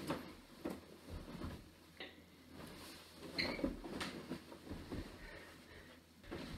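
Soft thumps and rustling of bedding as a person throws himself onto a bed and rolls across it, with several separate knocks and a brief squeak about halfway through.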